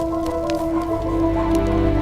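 Background music of sustained, held notes over a low rumbling bass that swells from about a second in.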